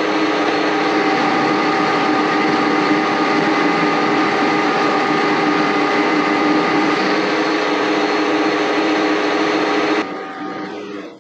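Metal lathe running with a four-jaw chuck spinning: a steady machine whine with several fixed pitches. It is switched off about ten seconds in and winds down to quiet at the end.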